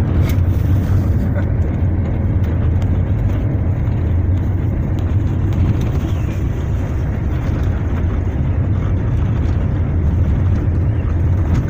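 Car driving on a rough dirt road, heard from inside the cabin: a loud, steady low rumble of engine and tyres, with a few faint knocks and rattles.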